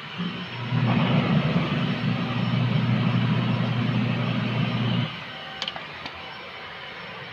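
Washing machine motor switched on for a test run, humming steadily for about four seconds, then cutting off suddenly. Two light clicks follow.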